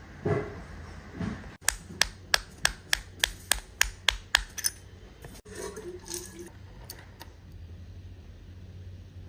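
A couple of softer knocks, then about a dozen sharp clicks in an even series, roughly three a second.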